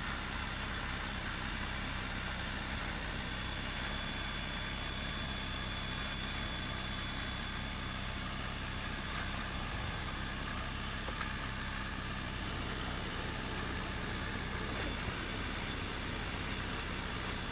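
Creality Falcon 2 22 W diode laser engraver running a full-power cutting pass through plywood: a steady whir of its fans and air assist, with a faint steady high tone.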